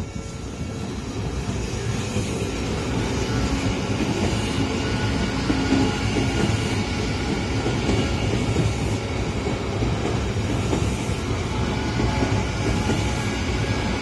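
Odakyu 60000-series MSE Romancecar electric train rolling across a level crossing. Its rumble swells over the first couple of seconds as it arrives, then holds steady while the cars pass. The crossing's warning bell keeps ringing.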